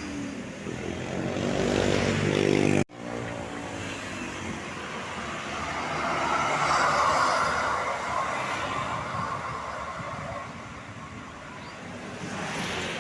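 Road vehicles passing close by: an engine pulling away with its pitch rising for about three seconds, then a sudden cut, followed by traffic swelling past with tyre and wind noise, loudest about seven seconds in and rising again near the end.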